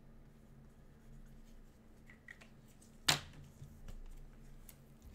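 Faint desk handling noises: scattered small ticks and rustles, with one sharp click or tap about three seconds in, over a low steady electrical hum.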